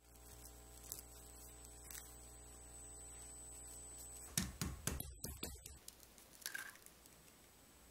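Plastic cling wrap crinkling and crackling as it is pressed into a glass bowl: a cluster of sharp crackles about four and a half seconds in, over a faint steady hum. Near the end there is a short sound as an egg is cracked into the wrap-lined bowl.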